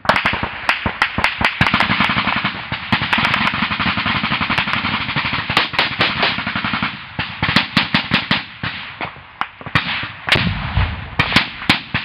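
Heavy small-arms fire in a firefight: rapid automatic fire, shots packed close together, for about the first seven seconds, then thinning to scattered single shots and short bursts.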